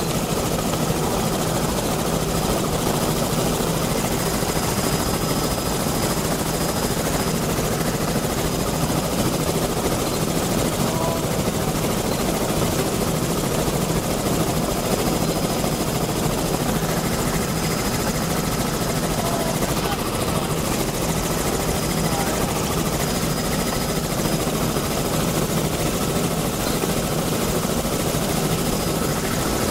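Steady drone of a survey helicopter's engine and rotor, heard from inside the cabin, holding even throughout.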